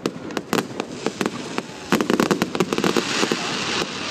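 Aerial fireworks display: rapid bangs and crackles of bursting shells, several a second, with a denser hissing crackle from about two to four seconds in.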